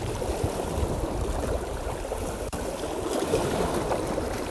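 Choppy sea water sloshing and splashing in strong wind, with wind rumbling on the microphone.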